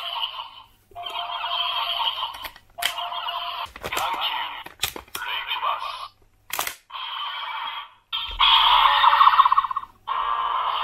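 DX Dark Z Riser toy's small built-in speaker playing electronic sound effects and voice callouts of the loaded kaiju medals, such as "Reicubas!", in short pieces with brief gaps. Sharp plastic clicks come in between as medals are slotted in and handled. The loudest stretch is near the end.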